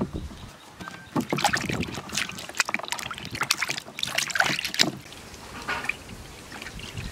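Water sloshing and splashing in a plastic basin as hands scrub noni fruits in it. The splashes come in irregular bursts, loudest from about one to five seconds in, then quieter.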